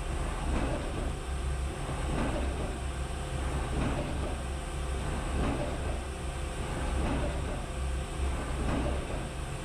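Mazak Integrex mill-turn machine broach-shaping the square hardy hole in a steel anvil: a regular rhythm of cutting strokes over the machine's steady hum.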